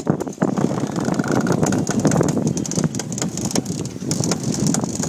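Wind buffeting the microphone and water rushing past the hull of a sailboat under way, with irregular clicks and knocks from a crew member working a sheet winch and its line.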